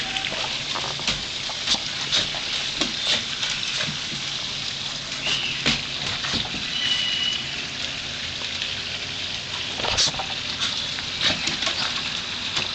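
A small Shih Tzu puppy's paws and claws tapping and scuffing on wooden deck boards as it scampers around, as scattered light clicks over a steady hiss.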